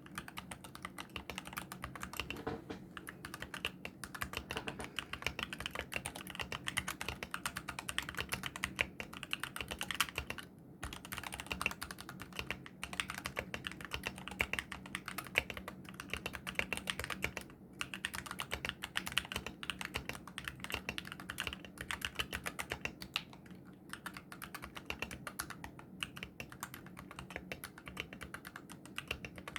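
Fast typing on a mechanical keyboard with dry, unlubricated Gateron optical brown switches, their tactile bump removed so they act as linear switches. A steady run of key clacks with a few short pauses between bursts.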